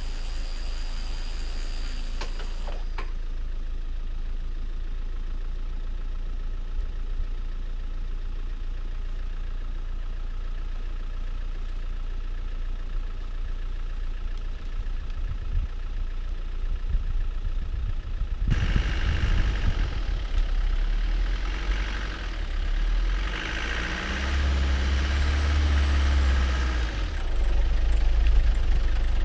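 Land Rover Defender 90's engine running with a steady low rumble. About two-thirds of the way through it gets louder, and a rushing noise joins it.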